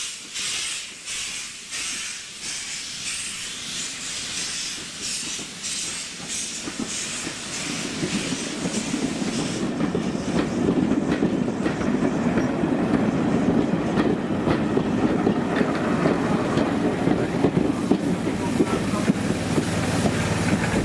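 Steam locomotive hauling a train of coaches, its chuffs about two a second fading away over the first several seconds. From about eight seconds in a louder, steady rumble of wheels on rails takes over, with light clicking over the rail joints.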